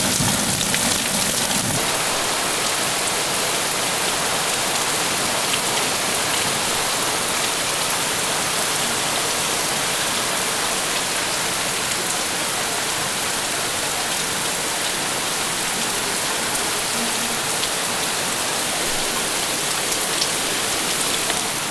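Steady rain pouring down in a thunderstorm. The tail of a low thunder rumble dies away in the first couple of seconds.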